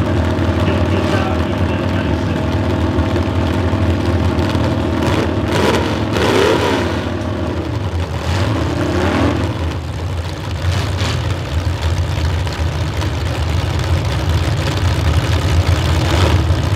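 Several demolition derby cars' engines idling together, with one rev that rises and falls about six seconds in and another around eight to nine seconds in.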